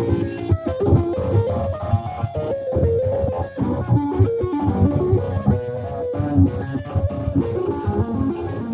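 Extended-range electric guitar played with two-handed tapping: quick runs of notes in a neoclassical style, over repeated low notes.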